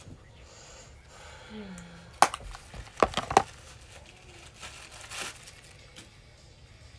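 Close-up handling noises: crinkling rustles with a sharp click about two seconds in and a quick run of clicks and knocks a second later, then a short rustle near the end.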